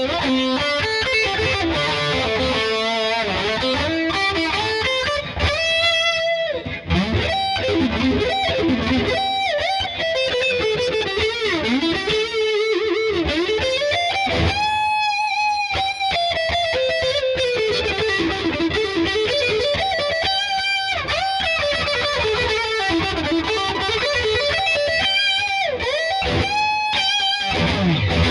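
Yamaha Pacifica 012 electric guitar played with a distorted tone: fast lead runs with string bends, and a few held notes shaken with vibrato.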